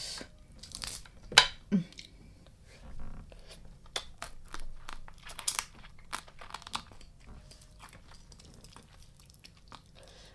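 Close-miked eating of a raw blue crab salad. Two sharp cracks come about a second and a half in, and a stretch of crunching and chewing runs through the middle; the rest is faint chewing.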